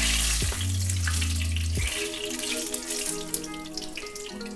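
Whole fenugreek, fennel and cumin seeds sizzling in hot oil in a pan, the sizzle dying down gradually.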